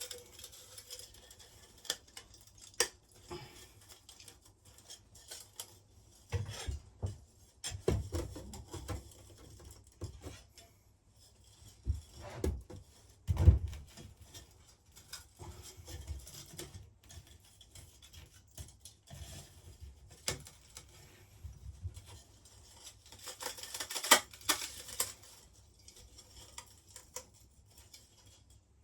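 Intermittent handling noise from taking apart an electric melting furnace: scattered clicks, taps and light scraping of its parts, with a sharper knock about halfway through and a flurry of clicks near the end.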